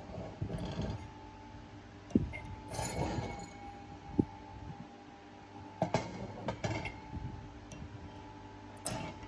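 Light metallic clinks and knocks, a few sharp ones scattered through, with short bursts of hiss, over a steady machine hum.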